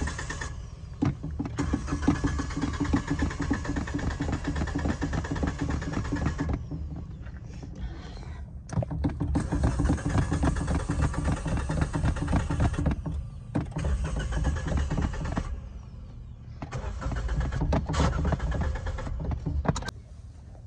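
Suzuki car's starter motor cranking the engine in four or five long bursts, a few seconds each, with short pauses between them. The engine will not catch: a hard start.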